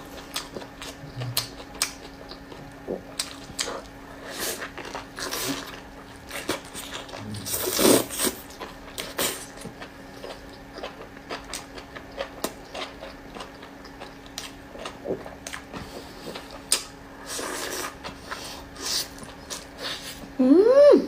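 Close-up eating sounds: a person biting and chewing a soft rolled pancake, with wet mouth clicks and smacks and a louder bite about 8 s in. Near the end comes a short hummed 'mm' that rises and falls in pitch, over a faint steady hum in the room.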